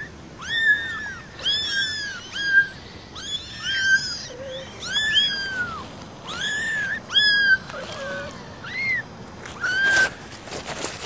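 Four-week-old kittens crying: a string of high mews that arch up and then fall, about two a second, from several kittens at once and sometimes overlapping. A few sharp clicks near the end.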